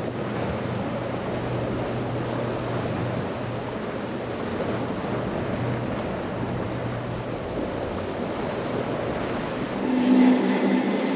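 Surf and wind noise over the steady low hum of a boat engine at the inlet. Near the end the sound changes abruptly to a louder, higher-pitched engine drone.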